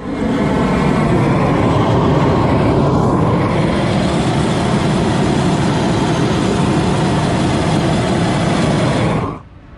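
Gas torch burning with a steady, loud rush of flame, which cuts off suddenly about nine seconds in.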